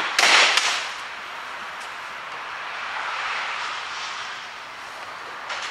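Parts being handled and worked into place in a car's engine bay: a brief loud scrape about half a second in, then a steady hiss with a small knock near the end.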